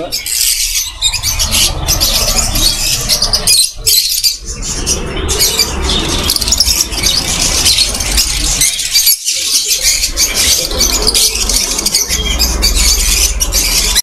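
Many small caged parrots calling at once in a dense, shrill chatter of overlapping squawks and screeches, with a low rumble underneath and brief breaks about four and nine seconds in.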